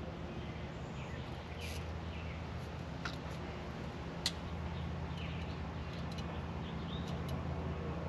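Small clicks of a hand wire crimper working a connector onto wire ends, with one sharp click about four seconds in, over a steady low hum and faint bird chirps.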